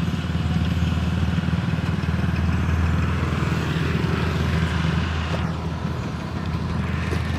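Kubota DC-60 rice combine harvester's diesel engine running steadily at a constant drone, easing off slightly about six seconds in.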